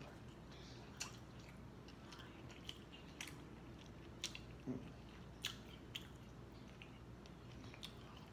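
Chewing and mouth sounds of someone eating, with sharp little wet clicks scattered irregularly, roughly one every second.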